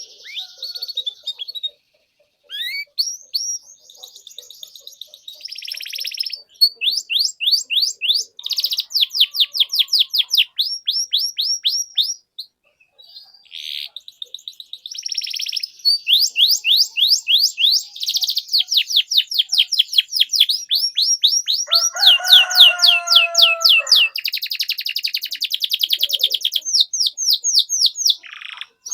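Domestic canary singing long, fast trilled phrases of rapidly repeated chirping notes (cuit-cuit), about ten notes a second, with a lower rolling note a little past the middle.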